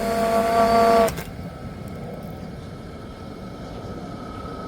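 Octocopter's brushless motors and propellers whining at a steady pitch, then cutting off abruptly about a second in with a short click. A quieter steady hum follows.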